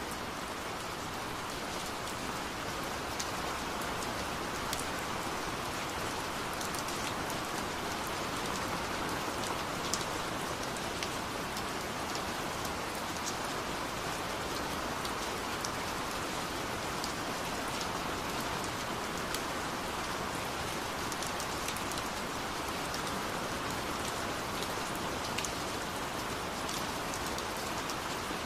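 Steady rain: an even patter with scattered sharp drop ticks.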